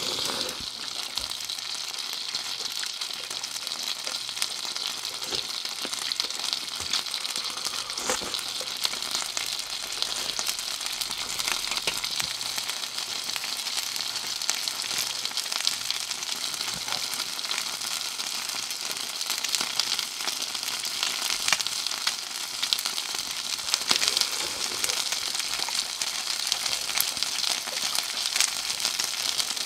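Chicken skewers (yakitori) sizzling as they cook: a steady hiss with scattered small crackles and pops.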